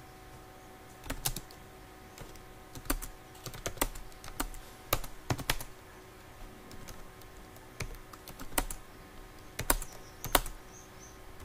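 Computer keyboard being typed on: irregular clicks of keys in short clusters, starting about a second in.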